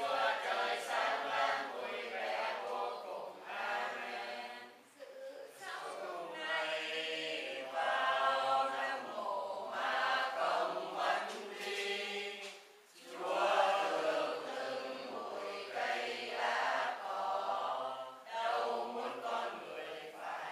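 A congregation chanting prayers together in unison, in long sung phrases. There are brief pauses for breath about 5 and 13 seconds in.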